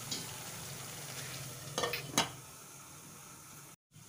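Chicken and tomato masala sizzling steadily in oil in a nonstick kadai, cooking on low heat in its own oil with no water added. A few sharp utensil knocks against the pan come about two seconds in, and the sizzle is softer after them.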